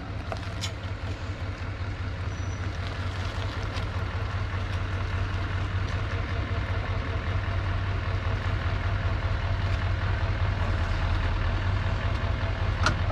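Chevrolet Silverado pickup's engine running as the truck backs slowly up to a trailer hitch, growing louder as it closes in. A single sharp click near the end.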